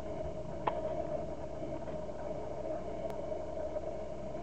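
Cessna 172 on final approach, its engine and propeller droning steadily at a distance, with two faint clicks.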